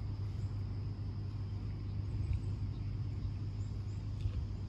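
A steady low hum with a faint background hiss, and no speech.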